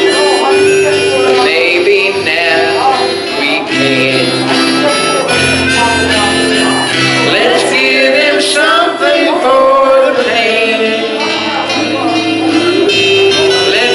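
Live gospel hymn: voices singing over held keyboard chords and bass notes.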